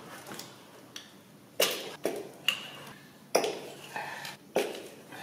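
Metal hand tools and parts clinking and knocking against each other, about six sharp clinks with a short ring, starting about a second and a half in. This is the work of pulling the spark plugs from an Audi 1.8 TFSI engine for a compression test.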